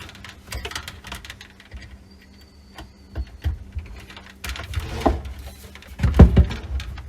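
Hands connecting plastic water-filter tubing to its fitting: scattered clicks and rustles of tubing and parts being handled, with heavier knocks about five seconds in and again just after six, the second the loudest.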